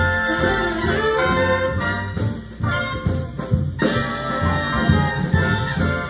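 Big band jazz instrumental break, a brass section of trumpets and trombones playing, heard as music played back through a hi-fi loudspeaker and recorded in the room.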